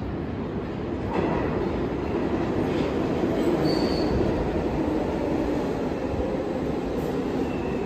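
New York City 6 subway train pulling into the station alongside the platform: a steady rumble of steel wheels on the rails that grows louder from about a second in, with a brief high squeal about three and a half seconds in.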